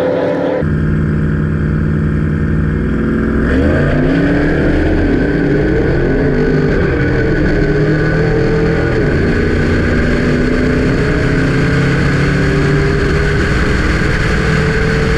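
A vehicle engine running under way with road noise. About three and a half seconds in, the engine note climbs quickly, then holds fairly steady and rises slowly.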